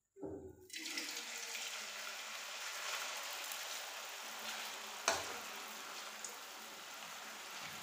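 Cornflour-coated potato sticks deep-frying in hot oil in an aluminium kadai: a steady sizzle starts suddenly about a second in as they hit the oil, while a metal spoon stirs them. Around five seconds in, the spoon gives a sharp clink against the pan.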